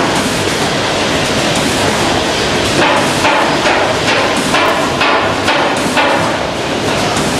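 Food packaging line machinery running: a loud, steady din of many small, irregular knocks and clicks from the weighing, conveying and bagging machines.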